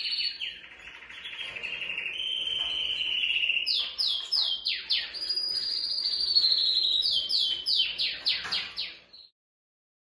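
Canary singing: long rolling trills, then several runs of quick notes that each sweep down in pitch, cut off suddenly near the end.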